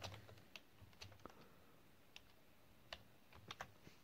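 Faint, irregular computer keyboard keystrokes: scattered single clicks and short runs while code is being typed.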